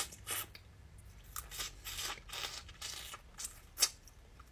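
Close-miked eating of boiled crawfish: wet slurps, sucks and crackles of shell in short irregular bursts, with one sharper, louder one near the end.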